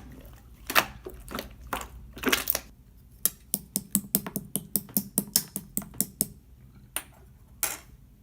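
Clear slime being pressed and squeezed by hand, giving crisp clicking pops and short wet squishes. In the middle comes a quick run of clicks, about four a second.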